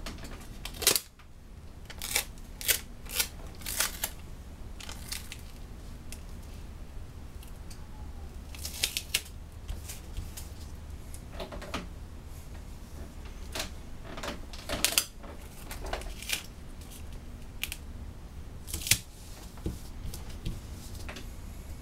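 Tyvek tape and Tyvek sheet being handled, peeled and pressed down onto a tabletop, making irregular crisp crinkles and taps a few seconds apart over a low steady hum.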